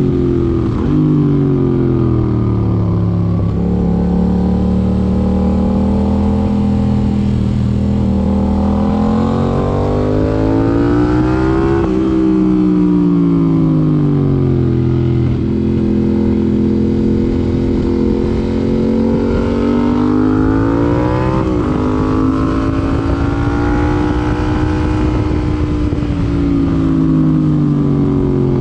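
Yamaha MT-07's 689 cc parallel-twin engine running through an aftermarket IXIL IXRACE MK2 exhaust while riding, with wind noise. Its pitch climbs and falls several times as the rider accelerates and eases off. There is a sudden drop in pitch about two-thirds of the way through, and then the pitch climbs again.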